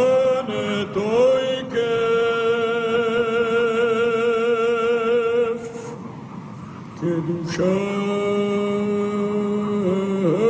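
A solo male voice chanting: it slides up into a long held note with a wavering vibrato, breaks off briefly near the middle, then holds a second long note.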